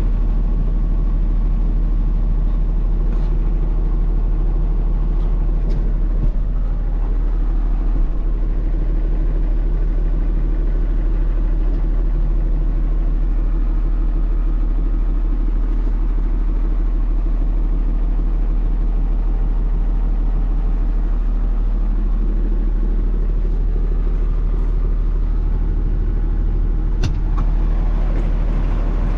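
Peterbilt 340 truck's diesel engine idling steadily in neutral, heard from inside the cab, with a single faint click near the end.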